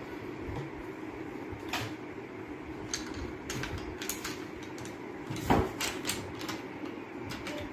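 Scattered clicks and knocks of marker pens and caps being picked up and handled on a tabletop, the loudest a thump about five and a half seconds in. A steady low hum runs underneath.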